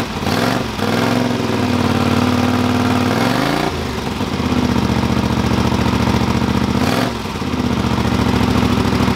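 Honda CX V-twin motorcycle engine running at a steady idle, blipped briefly on the throttle three times, about half a second in, near the middle and near the end.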